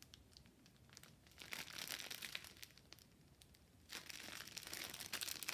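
Clear plastic bag of packaged diamond-painting drills crinkling as it is handled, faint at first and louder about four seconds in.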